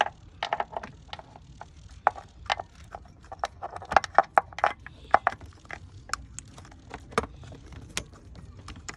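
Irregular clicks and light knocks of hands fitting a new camshaft-timing (VANOS) solenoid into a BMW engine and handling its plastic wiring connector, busiest around the middle.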